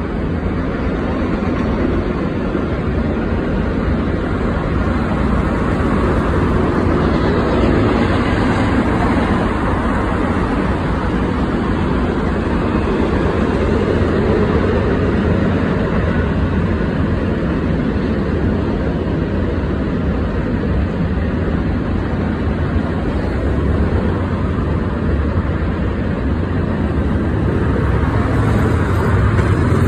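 Union Pacific freight train's boxcars rolling past, a steady loud rumble of steel wheels on rail.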